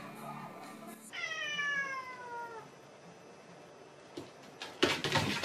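A cat's long meow about a second in, falling slowly in pitch over about a second and a half. Near the end comes a loud, noisy burst.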